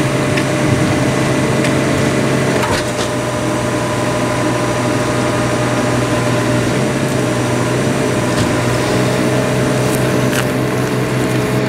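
Engine-driven machinery running steadily, powering a hydraulic pipe puller that draws a new sewer line through the old pipe. A few sharp cracks come about three seconds in and again near the end.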